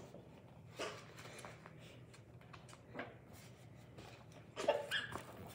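Classroom room tone with a steady low hum, faint rustling and small movement sounds, and a short burst of a child's voice near the end.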